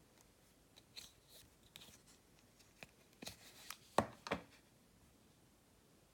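Faint clicks and rustles of a smartphone and its packaging being handled, about eight light clicks spread over a few seconds, the sharpest about four seconds in.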